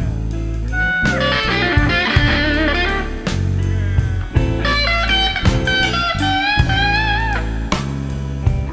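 Electric blues recording: electric guitar playing bent, wavering notes over bass and drums.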